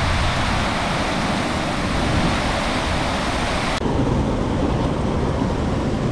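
Loud, steady rushing noise of water and wind on the microphone. About four seconds in it changes abruptly, the high hiss dropping away.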